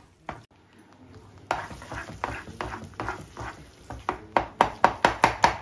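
Spatula stirring and mashing a thick paneer bhurji mixture in a nonstick frying pan, scraping and knocking against the pan. The strokes start about a second and a half in and grow louder and quicker, about three a second near the end.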